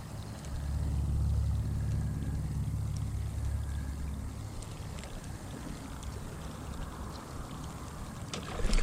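Water moving around a kayak, with a low rumble that swells for the first few seconds and fades. A few light clicks, then sharper knocks near the end.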